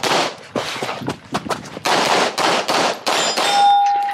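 Semi-automatic pistol fired in rapid strings of shots, each crack echoing briefly. Near the end a clear steady ringing tone sounds for under a second over the shots.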